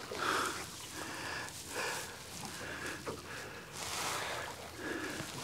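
A person breathing and sniffing, in short irregular puffs.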